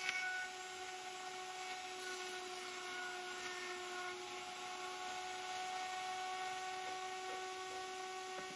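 A hand-held power tool's electric motor running steadily at one speed, giving a steady whine that holds its pitch throughout.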